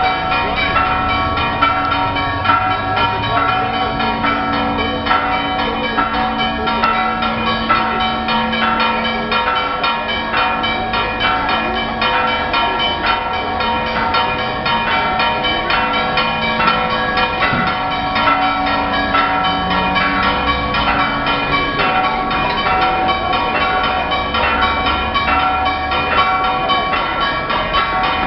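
Church bells pealing: several bells struck rapidly and without pause, their ringing tones overlapping.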